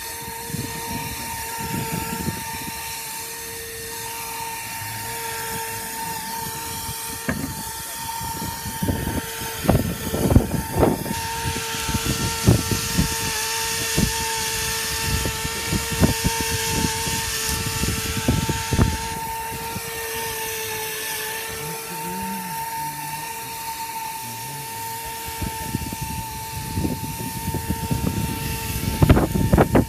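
Fiberglass chopper spray gun running with a steady whine while it sprays roofing emulsion and chopped fiberglass, with irregular low rumbles and knocks that are loudest about ten seconds in and near the end.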